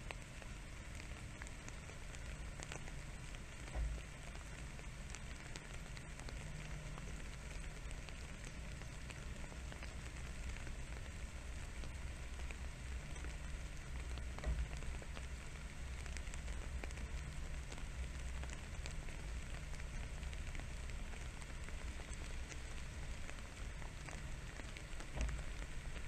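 Light rain pattering steadily on grass and leaves, a fine ticking hiss, with a low rumble underneath and three soft thumps spread through it.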